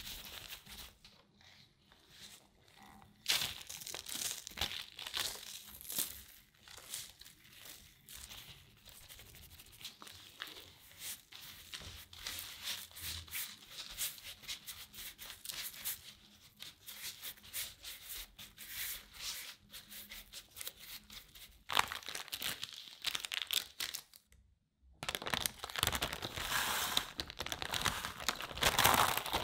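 Gloved hands rubbing and spreading a dry cocoa-and-flour crumb mixture, with fine scratchy rustling of the crumbs against the glass bowl and the baking paper. Near the end, after a short break, it turns to louder crinkling of baking paper as the baked crumbs slide off it into a glass bowl.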